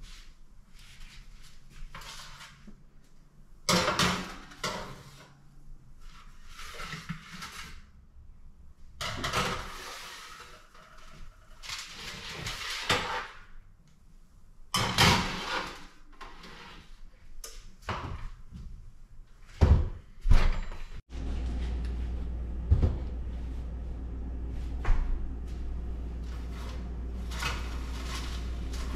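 Kitchen handling noises: cupboard doors and drawers opened and shut and things knocked and set down, in a string of separate clatters. About two-thirds of the way through, a steady low hum starts suddenly and carries on under a few more knocks.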